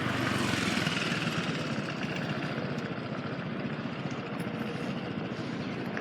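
Urban traffic noise, with a vehicle passing and swelling then fading in the first second or two, followed by a steady background hum of traffic.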